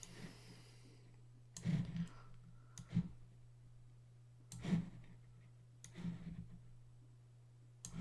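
Computer mouse clicks, about five spaced a second or so apart, over a steady low hum.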